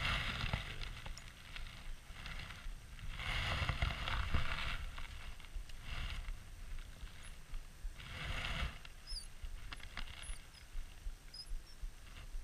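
Abu Garcia spinning reel being cranked in several short spells, squeaking as it turns, with a low rumble of rod handling under each spell.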